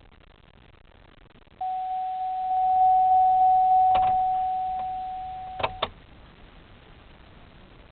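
A steady electronic beep tone held for about four seconds, with a click partway through and two sharp clicks as it cuts off.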